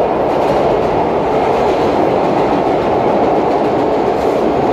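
Vintage R1/9 'Arnine' New York subway train running at speed through a tunnel, heard from inside the car: a steady, loud rumble of wheels on rails.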